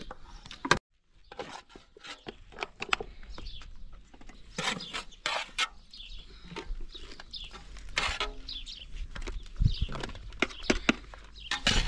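Metal spoons scraping and clinking against a metal pot and plastic jars as chopped pickle mixture is scooped and packed in: a string of short irregular clicks and scrapes.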